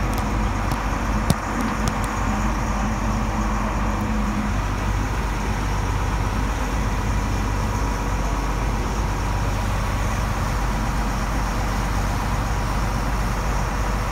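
A motorboat's engine running steadily under way, mixed with the rush of wind and churning wake water. A single short knock sounds about a second in.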